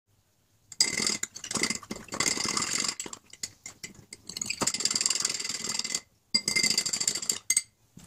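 Metal teaspoon stirring water in a glass tumbler, clinking quickly against the glass with a ringing note, to dissolve dry yeast and sugar. The strokes thin out about three seconds in and stop briefly near six seconds.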